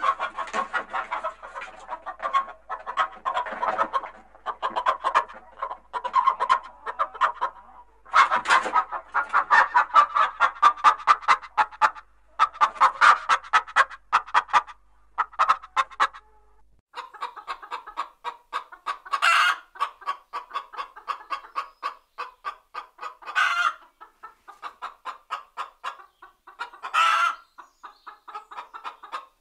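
Domestic hens clucking in rapid runs of short calls. About halfway through the recording changes to steadier clucking broken every few seconds by a single louder, shriller call.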